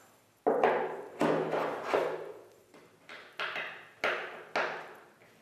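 A plastic side fin knocking and tapping as it is pushed down into its fin box on a paddle board, a run of sharp knocks about every half second to a second, each ringing briefly.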